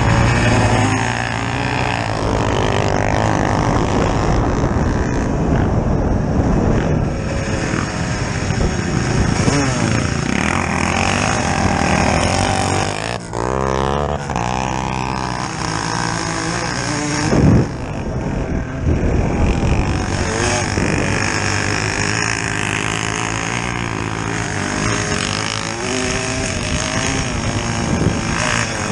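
Kawasaki KX125 two-stroke single-cylinder dirt bike engine revving up and down under way, pitch rising and falling with the throttle. One sharp thump a little past halfway.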